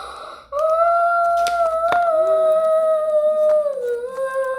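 A girl humming one long held note that slides a little lower near the end, with a single short click partway through.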